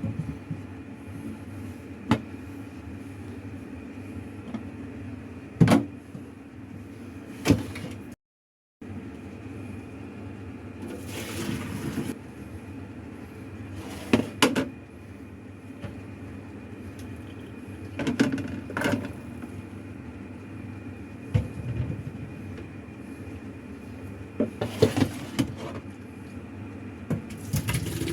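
Cookware being handled in a kitchen: pots, lids and utensils knocking and clattering on and off, with a few short rushing noises, over a steady background hum.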